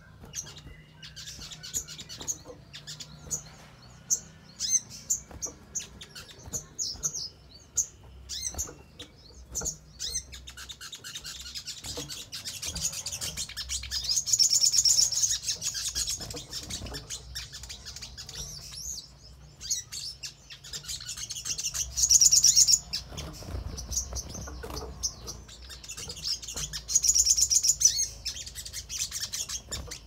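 Olive-backed sunbird (sogon) calling. First come many short, high, thin chirps. About a third of the way in these turn into a fast, high trilling song in repeated loud bursts.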